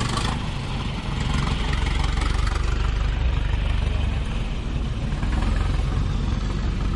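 Classic car engines running at low revs as cars drive slowly past, a steady low rumble that swells about a second in.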